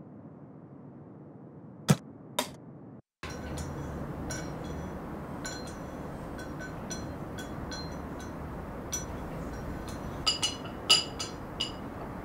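Two sharp knocks about two seconds in, then a steady low room hum with repeated small ringing clinks of porcelain teaware, a teacup and saucer being handled at a table. The clinks come thickest and loudest near the end.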